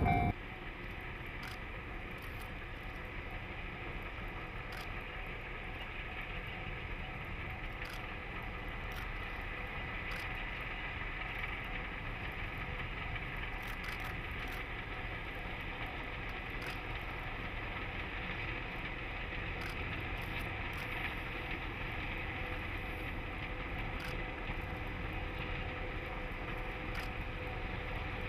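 DD14 diesel rotary snow-plough locomotive working through deep snow, its engine and rotary blower making a steady rumble with a faint constant whine. It grows slowly louder as the machine comes closer.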